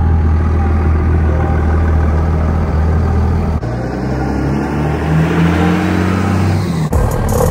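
Vehicle engine running and revving, its pitch climbing about five seconds in as it accelerates. The sound changes abruptly twice, once partway through and again near the end.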